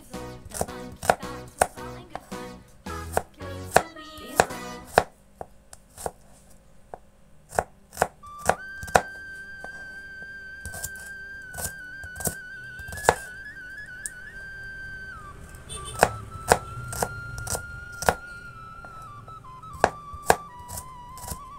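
A kitchen knife slicing shallots on a cutting board: sharp taps of the blade hitting the board at an uneven pace, one or two a second.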